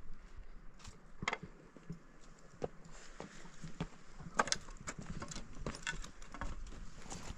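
Irregular clicks and knocks of steps on stony ground, with small stones rattling, a few louder strikes around the middle.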